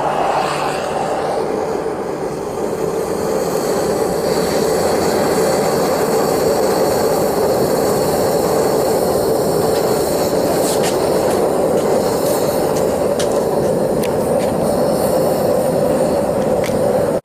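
Small metal-melting furnace running with a steady roar as it heats a crucible of bronze scrap to melt it down, with a few faint clicks.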